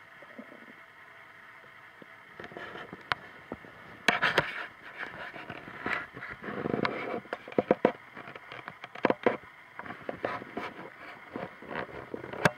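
A human stomach making noises: after a couple of quiet seconds, a run of irregular pops, clicks and gurgles, loudest about four seconds in.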